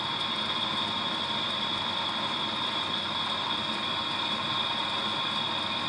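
A steady mechanical hum with a constant high-pitched whine running through it.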